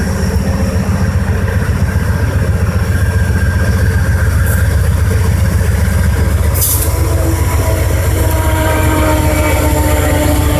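Diesel passenger train moving through a station: a steady, pulsing low engine rumble with rail noise. Faint wheel squeal comes in over the second half, and there is a brief high hiss about two-thirds of the way in.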